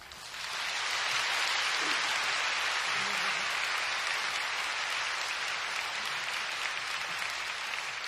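Live audience applauding: the clapping starts at once, swells to full within about a second, then holds steady and eases off a little near the end.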